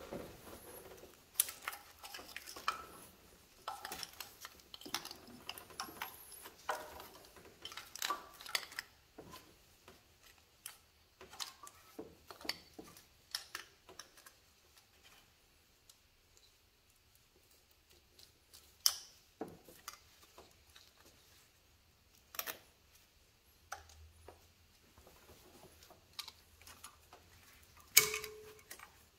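Irregular small clicks and light plastic-and-metal knocks from hand work in an engine bay, likely wiring-harness connectors being plugged back onto the fuel injectors and sensors, with a few seconds of near quiet in the middle.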